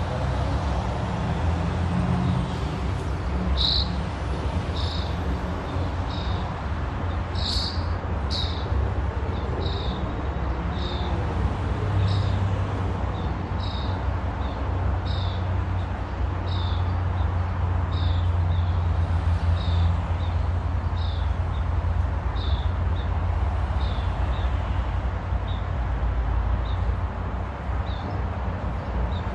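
A small bird calling over and over, a short high, slightly falling note about once a second, over a steady low rumble.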